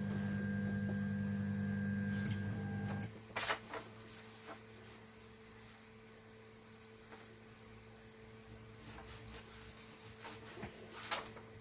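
Wanhao Duplicator i3 Plus 3D printer humming steadily, cutting off abruptly about three seconds in. After that, low-level handling sounds: paper rustling and a few light clicks.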